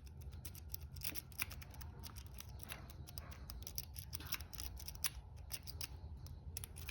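Lock pick working the pin tumblers of a brass padlock: a steady run of faint, irregular small metallic clicks.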